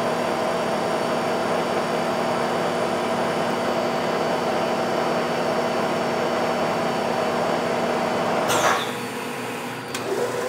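Bridgeport R2E3 (Boss 8) CNC milling machine cutting a part, spindle and coolant running: a steady mechanical whir with a hum under it. About eight and a half seconds in the sound drops away and quietens as the cut ends.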